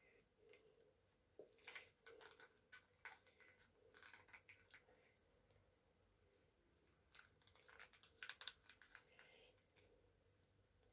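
Faint clicks and crinkles from hands winding a stretched rubber band around cotton swabs pinched against a plastic toothpaste tube, coming in two short spells over near silence.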